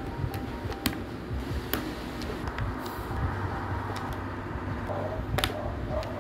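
Mechanical keyboard switches being pushed into the keyboard's sockets: a handful of sharp plastic clicks, a second or so apart, over a steady low hum.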